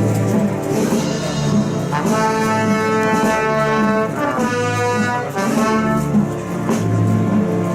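Brass band playing a slow processional march, trumpets and trombones holding long notes over drum beats.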